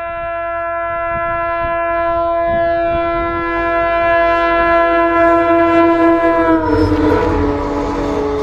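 Train horn held in one long blast as the speed-trial train approaches. Its pitch drops suddenly near the end as the train passes, and the rush and rumble of the train passing rise under it.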